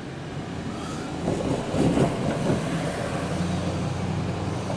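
CSX freight train of empty coal hopper cars rolling past, wheels clattering over the rails with a steady low hum, the clatter swelling about two seconds in. Heard from inside a car.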